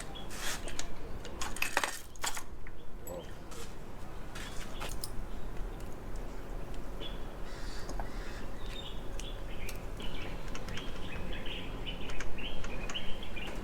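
A few sharp metallic clinks of tools and engine parts being handled, then birds cawing repeatedly through the second half.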